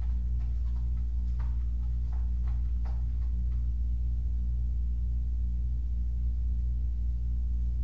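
Steady low hum, with a quick series of light taps and scratches in the first half as kittens' paws and claws hit the cardboard scratcher and the wooden floor while they play.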